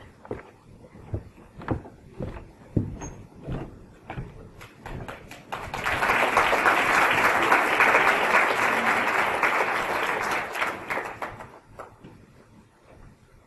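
A few scattered knocks and thumps, then an audience applauding, beginning a little before halfway and fading out near the end.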